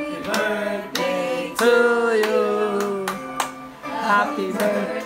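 A song sung with steady hand clapping in time, the claps coming about every two-thirds of a second.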